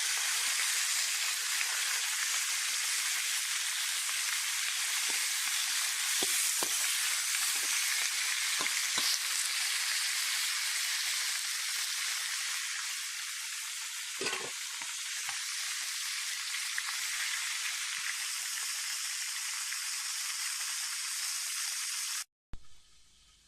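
Whole duck frying in hot oil in a pan, a steady sizzle as the skin browns, with a few light clicks and one knock about 14 seconds in. The sizzle cuts off abruptly near the end.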